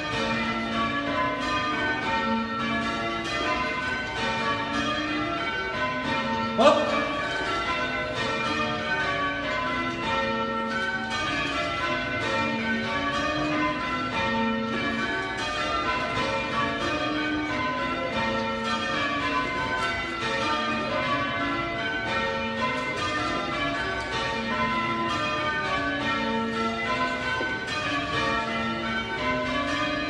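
A ring of eight church bells, mostly cast by John Taylor & Co. with two Whitechapel trebles, rung full-circle in change ringing: a steady, even stream of overlapping bell strikes. One louder, brief sharp sound stands out about a quarter of the way through.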